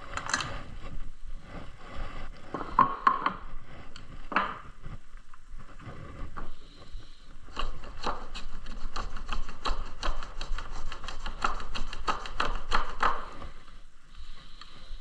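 Light wooden clicks and taps from work on wooden parts, scattered at first, then a quick run of about five clicks a second through the second half.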